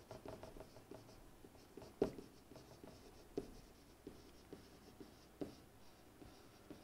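Faint scratching and ticking of a stylus writing on a tablet, with a few sharper taps as the pen touches down.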